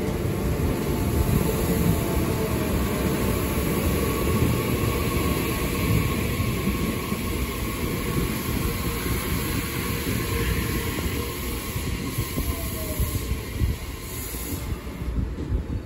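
JR Central electric commuter train running into the platform and braking to a stop, with steady wheel-and-running noise that eases off toward the end and a faint whine over it.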